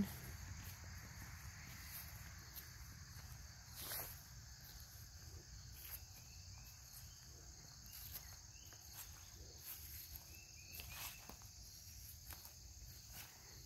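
Faint, steady, high chirring of insects outdoors, with a few soft knocks of footsteps on garden soil.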